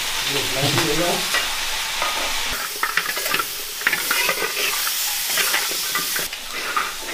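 Metal spatula stirring and scraping chopped pork trotter pieces around a large iron wok while they sizzle in hot oil, the scrapes coming as quick irregular clicks over a steady hiss.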